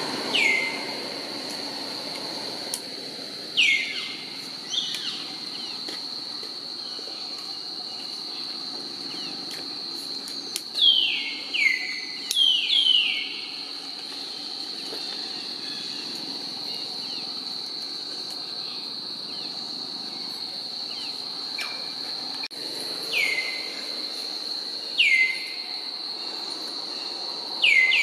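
Steady high-pitched insect drone with about ten short calls over it, each sliding sharply down in pitch. Some calls come singly and some in quick pairs.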